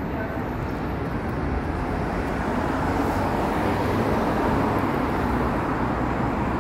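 Steady road traffic noise from cars passing on a multi-lane street, a rushing tyre-and-engine sound that swells about halfway through as a car drives past close by.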